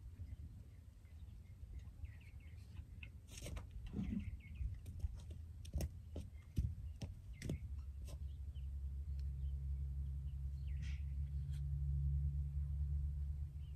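Quiet outdoor ambience: faint bird chirps and scattered small clicks and rustles, with a steady low rumble coming in about eight seconds in.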